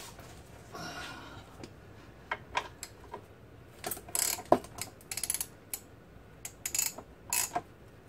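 Ratchet clicking in short, irregular bursts of clicks and knocks while the engine, hung from an overhead strap, is lowered a little.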